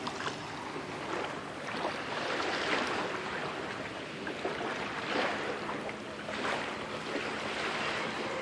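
Shallow water sloshing and splashing at the shore, with irregular louder swishes.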